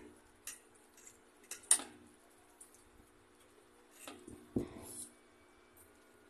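Metal forks clicking and scraping against plates of spaghetti, a few sharp clicks with the loudest just under two seconds in. About four seconds in, mouth noises as a forkful of spaghetti is slurped and chewed.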